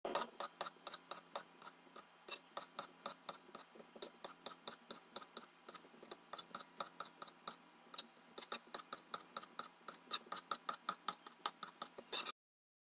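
Kitchen knife slicing white button mushrooms on a cutting board: quick, even taps of the blade on the board, about four or five a second, stopping abruptly near the end.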